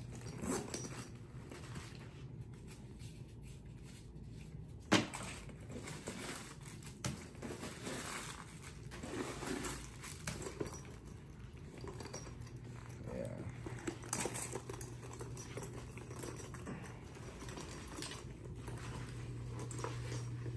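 Quiet handling of a newly unwrapped gift and its packaging: light rustling and a few sharp clicks, over a steady low hum.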